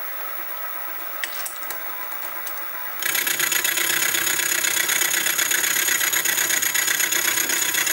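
Sieg SX2P mini mill running. About three seconds in, the cutter starts milling the cast soleplate as the table is fed by hand, giving a loud, steady cutting noise with a high whine.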